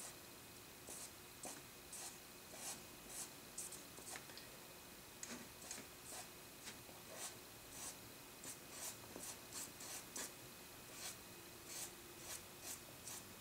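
Faint, quick strokes of a pencil-type drawing tool scratching across paper, about two a second and irregular, as hair strands are worked into a charcoal portrait.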